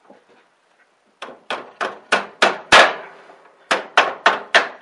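Hammer strikes driving a riding mower's front wheel spindle up through its new plastic bushings in the front axle. Two runs of quick, sharp blows, six and then four, about three a second.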